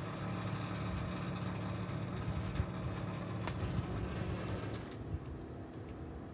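Panasonic 2J45FHA2 rotary compressor running at low speed: a steady hum with scattered knocks, the abnormal noise of something loose inside the compressor. The hum drops away about five seconds in.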